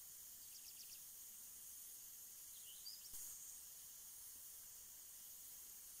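Faint steady high hiss of pop-up sprinkler spray heads watering. A quick run of faint high chirps comes within the first second, and a rising chirp followed by a click, the loudest moment, comes about halfway through.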